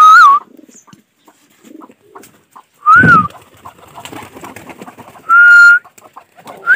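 A person whistling short, loud calls to pigeons being let out of their loft: one at the start, one about three seconds in, a longer steady one near the end and another at the close. Pigeons coo faintly between the whistles.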